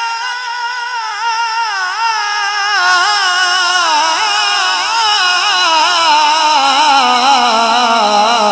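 A man singing an Urdu devotional kalam into a microphone, drawing out one long ornamented note with a wide vibrato that slowly sinks in pitch.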